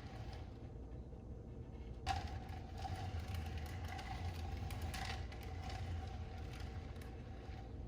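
A metal mechanism being worked: scraping and creaking that starts suddenly about two seconds in, with a squeak repeating about twice a second.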